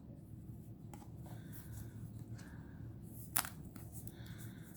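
Tarot cards handled between showings: faint rustles and light clicks as cards are moved and laid down, with one sharp tap about three and a half seconds in, over a low steady hum.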